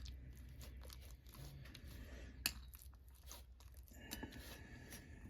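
Faint tearing and squishing of biscuits being broken and pressed down into sausage gravy on a plate, with one sharp click about halfway through.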